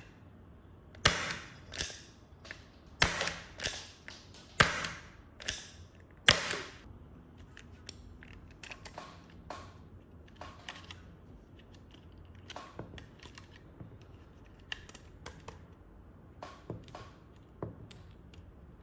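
Revolver firing four shots about one and a half to two seconds apart, each a sharp crack with a short ring after it and lighter mechanical clicks between shots. The clicks from the action continue on their own for the last dozen seconds.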